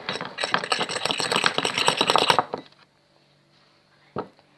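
A spoon stirring glue and liquid detergent together in a bowl to make slime: fast, dense clattering and scraping against the container that stops after about two and a half seconds, then a single knock near the end.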